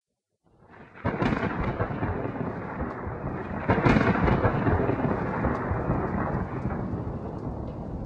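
Thunder with rain: a sharp crack about a second in, then a long rolling rumble that swells again near the middle and slowly dies away.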